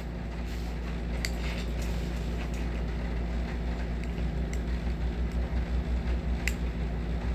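A plastic slime can being worked at to pry its lid open, with a few separate sharp clicks and small scrapes, over a steady low hum.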